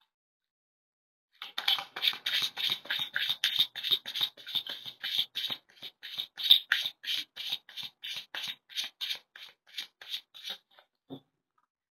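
A deck of tarot cards being overhand-shuffled by hand: a quick, even run of card-on-card slaps at about four or five a second that starts about a second in and thins out near the end, followed by a single soft knock.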